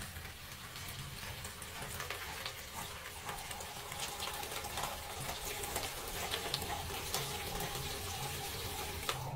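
Gasoline pouring in a steady stream from a red plastic jerry can into a basin of oil, slightly louder from about three seconds in.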